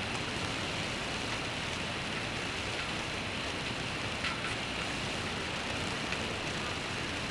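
Steady rainfall hiss, with a few sharp drip ticks, the clearest about four seconds in.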